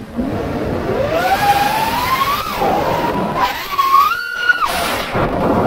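Five-inch FPV quadcopter's Hypetrain 2306 2450kv brushless motors and propellers whining, the pitch following the throttle: a long rise over the first two seconds or so, a dip, then a short high-throttle burst about four seconds in. Rushing wind noise on the onboard action camera's microphone sits under it.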